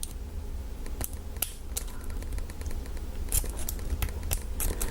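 Irregular small clicks and scrapes of a lock pick and tension wrench working the pins of an American 1100 padlock under heavy tension, over a low steady hum.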